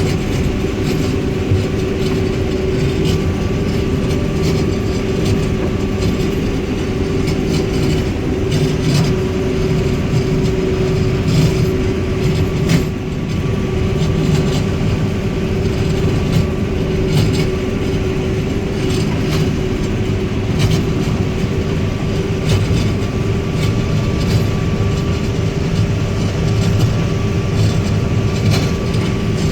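New Holland CS6050 combine harvester running steadily while harvesting corn, with a constant whine over a low rumble and frequent sharp clicks and crackles.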